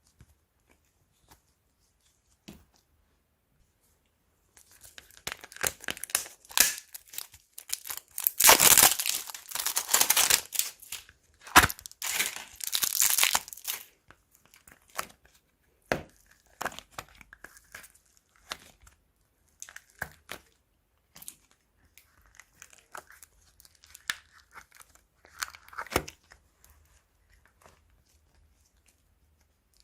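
Crunchy slime being kneaded and stretched by hand, giving off dense crackling and popping that thins out to scattered pops about halfway through.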